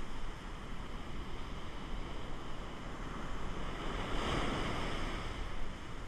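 Ocean surf washing up the beach, with a wave surging in about four seconds in, the loudest moment. Wind rumbles on the microphone throughout.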